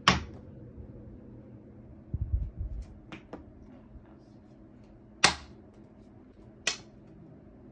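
Playing cards flicked through the air one at a time, each throw a short, sharp swish: loud ones at the start, about five seconds in and near seven seconds, and a fainter one a little after three seconds. A few dull low thumps come a little after two seconds in.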